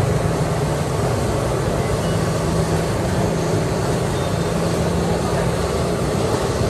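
Samosas deep-frying in a large karahi of oil, a steady sizzle over a low, even rumble.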